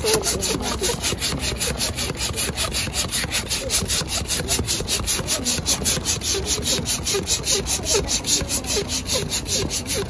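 Hand-held plastic balloon pump worked in quick strokes, a fast, even rasping whoosh about four to five times a second, inflating a balloon inside a clear bubble balloon.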